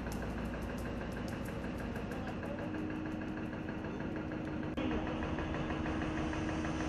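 Mobile crane's diesel engine running steadily with a low hum, a little louder from about five seconds in.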